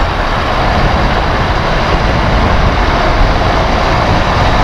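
Loud, steady wind rush over the microphone mixed with the Hero HF Deluxe's small single-cylinder four-stroke engine running flat out near the bike's top speed of about 97 km/h.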